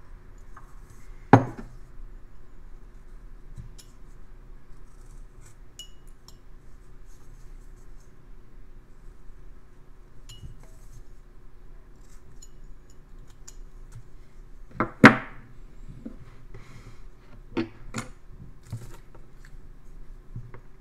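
Small carving knife cutting a basswood block, with faint scraping and snicking cuts, broken by sharp clinks of tools being handled: a loud one about a second in, the loudest near the three-quarter mark, and a few smaller ones just after.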